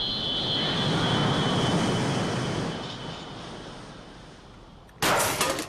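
A jet-like rushing noise that fades away over about four seconds, then a sudden loud burst about five seconds in, lasting about half a second.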